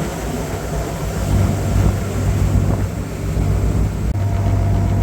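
A fishing boat's engine running with a steady low drone, with wind and water noise over it.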